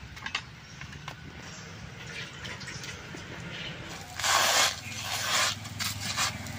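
Batter sizzling in bursts as it is pressed by hand onto a hot wok, loudest about four seconds in, with a few light clicks in the first second and a low steady hum underneath.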